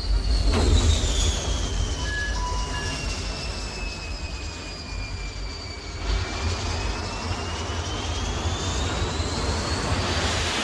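Jet fighter's engine landing on an aircraft carrier deck: a high turbine whine falls in pitch over about six seconds and then rises again, over a steady deep rumble, with a thump about half a second in as it touches down.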